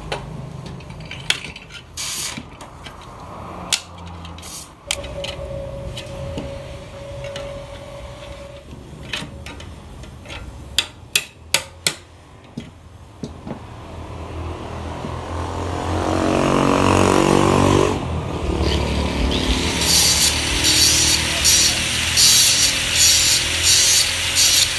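Metal knocks and clanks from handling the steel exhaust muffler, then an angle grinder spins up with a rising whine and cuts into the muffler shell, making a loud harsh pulsing hiss through the last several seconds.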